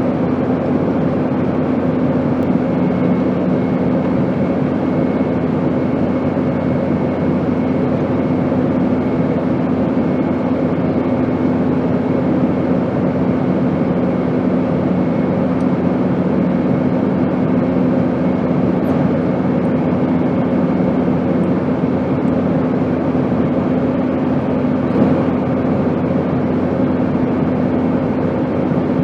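Airplane in flight: a steady, even rushing noise with a constant low hum of a few steady tones, unchanging throughout.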